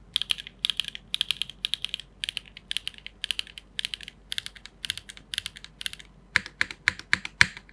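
Typing on a TYP60 mechanical keyboard with SWK Dragon Ghost switches, a carbon fibre plate, an O-ring mount and GMK keycaps: quick runs of keystrokes about twice a second. Near the end comes a handful of louder, deeper key strikes, the last one the loudest.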